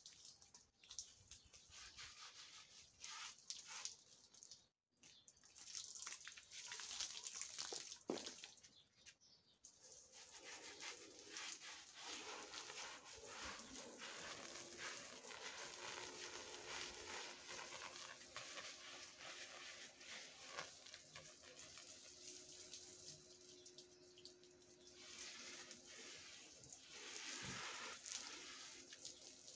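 Faint trickling and dripping water with small ticks, and a low steady hum joining in about halfway through.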